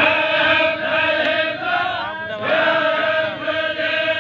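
Baloch chogan devotional chant: men's voices chanting long, wavering held notes, with a short break about two seconds in.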